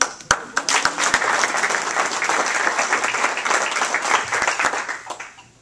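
Audience applauding, a roomful of hands clapping, with a few louder, closer claps in the first second. The clapping holds steady and then dies away near the end.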